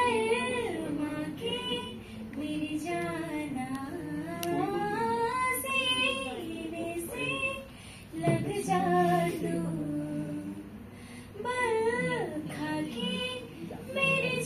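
A young woman singing solo into a microphone without accompaniment: slow phrases with long held, wavering notes, broken by short pauses.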